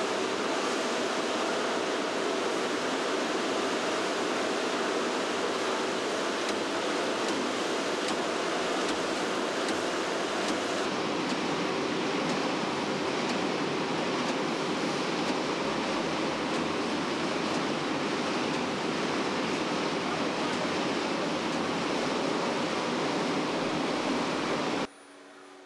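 Steady machinery noise from a cereal-bar production line: a dense, even hiss with a faint underlying hum. The sound shifts slightly about eleven seconds in and falls away sharply near the end.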